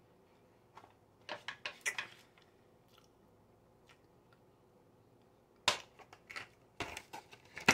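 A person chewing a mouthful of coconut cream pie with close, wet mouth clicks and smacks. The clicks come in a cluster about a second in and another near the end, with little between.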